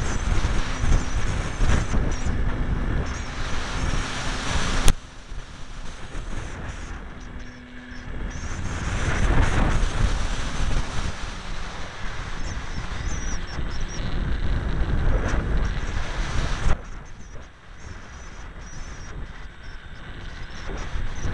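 Wind rushing over the onboard camera's microphone on a ParkZone T-28 Trojan electric foam RC plane in flight, mixed with the whine of its electric motor and propeller. A sharp click about five seconds in is followed by a sudden drop in loudness, which swells back up and then drops sharply again near the end.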